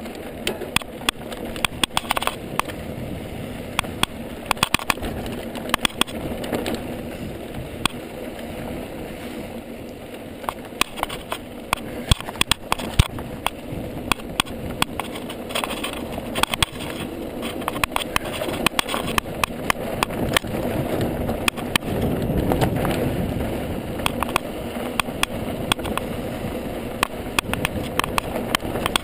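Mountain bike rolling fast down a dirt trail: knobby tyres crunching over dirt and gravel, with constant rattling and clicking of the bike over bumps and wind on the microphone, the rumble swelling for a few seconds past the middle.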